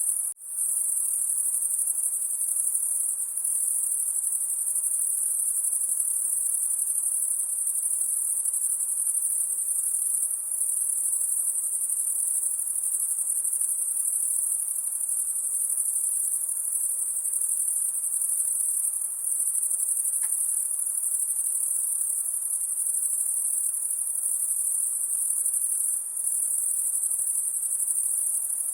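Continuous high-pitched chorus of night insects, held steady throughout, with a momentary dropout just after the start.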